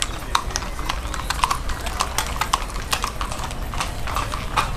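Hooves of a passing herd of longhorn cattle knocking on the street pavement: many irregular, overlapping steps.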